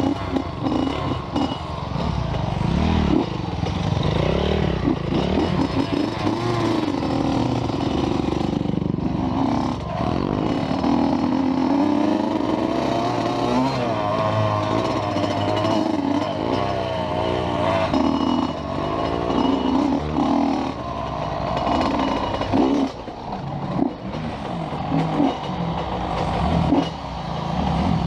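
Motorcycle engine running while being ridden, its revs rising and falling.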